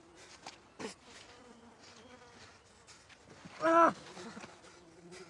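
A man's short strained cry, loud and brief, about two-thirds of the way in, dropping in pitch as it ends. Faint rustling and a soft knock just before a second in come from his movement.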